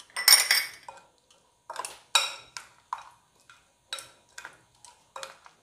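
Metal spoon clinking against glass bowls while gram flour is tapped into a chicken marinade and mixed: a dozen or so short, ringing clinks, about two a second, the loudest about half a second and two seconds in.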